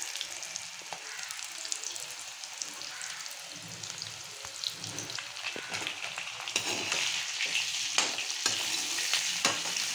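Boiled new potatoes frying in hot oil in a steel kadai: a continuous sizzle with crackling that grows livelier about two-thirds of the way through. Near the end there are a few sharp clicks as a metal slotted spoon knocks against the pan while turning them.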